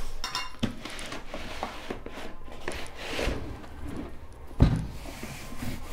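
Black ABS plastic carrying case being slid out of a cardboard box sleeve: cardboard scraping and rustling with light knocks, and one heavy thump about four and a half seconds in.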